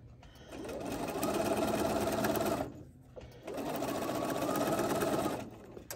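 Bernina computerized sewing machine stitching rickrack onto fabric at slow speed, in two runs of about two seconds each with a short stop between.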